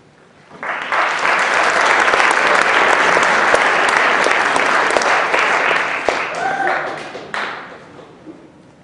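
Concert audience applauding: the clapping swells in about half a second in, holds steady, then thins out and fades near the end.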